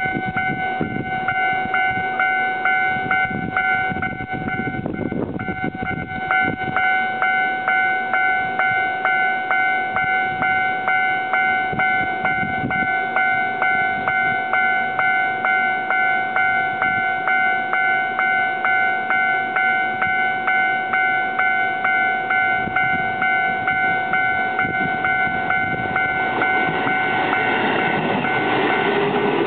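Japanese level-crossing alarm ringing steadily at about two rings a second over the rumble of a train. Near the end the noise swells and a rising whine of an electric train's motors joins in.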